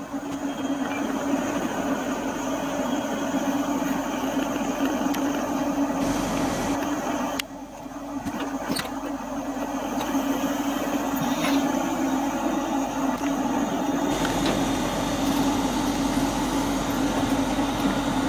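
Passenger train standing at a station platform, humming steadily, with a few faint clicks. The sound drops suddenly about halfway through and then comes back.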